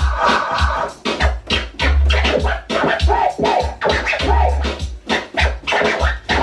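DJ scratching a music track with heavy bass hits, the track chopped back and forth in short strokes, played on a Pioneer XDJ-1000MK2's jog wheel controlling Serato by timecode through a Pioneer DJM-S9 battle mixer.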